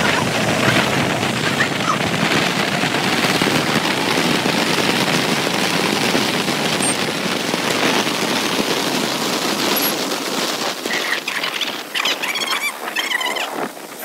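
Heavy wind rushing and buffeting over the microphone of a moving Honda SP125 motorcycle, with road and engine noise beneath it. It eases off somewhat in the last few seconds.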